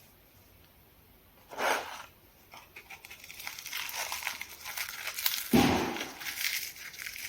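Close-miked crackling and crunching of crisp fried food being handled and eaten: one short crunch about a second and a half in, then a dense run of crackles that builds up, with a dull thump about five and a half seconds in.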